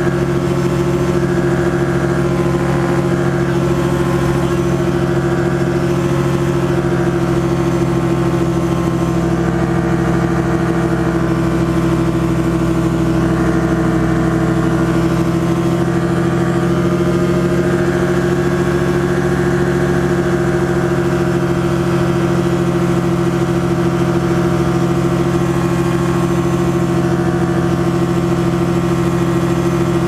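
Challenger ultralight aircraft's engine and propeller running steadily at cruise, a constant drone.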